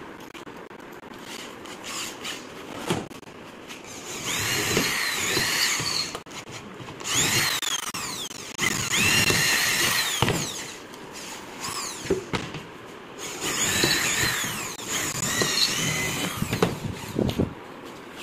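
Corded electric hand drill boring holes into a laminated wooden board in several bursts of a few seconds each. Its motor whine rises as the trigger is squeezed and falls away on release, with short knocks and clicks of handling between bursts.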